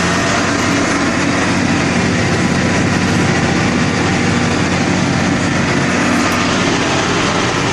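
Harvest machinery running steadily: a constant engine hum under a wide mechanical din, with no change in pitch or level.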